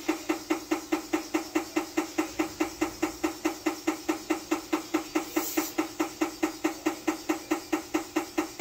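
Steady mechanical ticking, about four or five clicks a second at an even pace, each click with a brief low tone.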